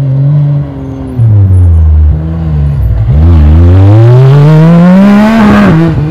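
Off-road rally buggy's engine revving as it drives past on a loose dirt track. The revs drop about a second in, sink lowest around halfway, then climb steadily as it accelerates past close by, with the hiss of tyres on loose dirt swelling toward the end.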